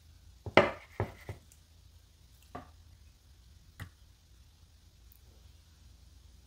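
Chef's knife cutting through a block of firm tofu and knocking on a wooden cutting board: a quick cluster of knocks about half a second in, then two single knocks at about two and a half and four seconds in.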